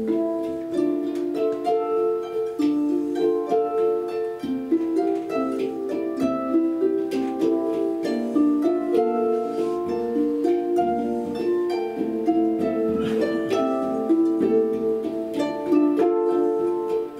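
Two Hang steel hand pans played with the hands together with a plucked harp: a steady flow of ringing, overlapping melodic notes.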